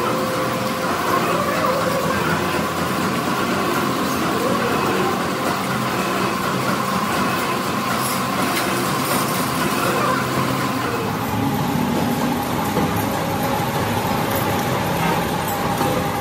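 Steady machine-shop din of machinery running, with a held whine that drops slightly in pitch about eleven seconds in.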